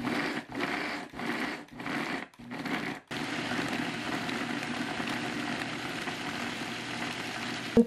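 Electric countertop blender grinding salt-fermented hairtail, bones included, with chunks of radish: first switched on in several short pulses, then run steadily for the rest of the time to grind the bones fine.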